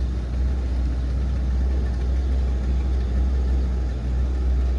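Motorboat engine running steadily from on board: a constant low drone.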